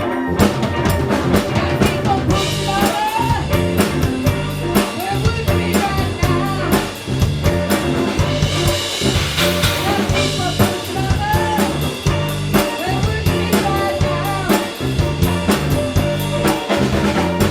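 Band playing an instrumental passage on drum kit and bass with a steady beat. Over it, a lead instrument plays a line of bent, sliding notes.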